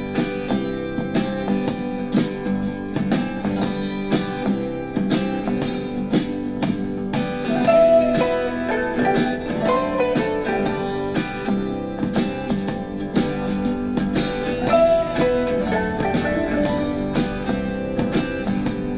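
Country-folk music led by plucked and strummed acoustic guitar, played back on a small portable Bluetooth speaker. The track starts as the sound begins and runs on steadily.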